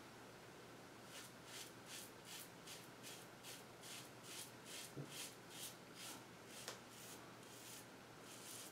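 Merkur 34C double-edge safety razor with an Astra SP blade scraping through stubble on the neck in short strokes, about three a second, faint. These are upward strokes of a second pass across the grain.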